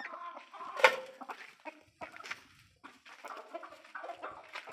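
Desi chickens clucking in a run of short calls, with one sharp knock a little under a second in.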